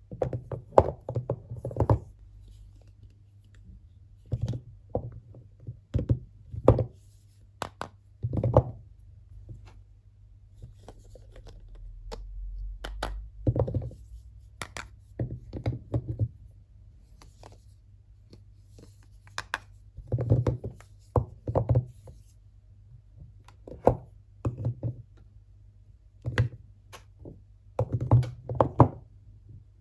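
Hands unpacking and handling soap bars close to the microphone: irregular knocks, taps and thunks as soap and packaging are picked up and set down on a hard surface.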